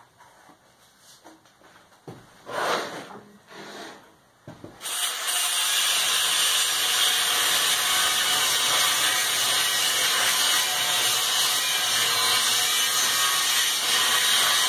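A few light knocks and handling sounds, then about five seconds in an angle grinder starts and grinds steadily on the steel forge shell, cleaning up the welds.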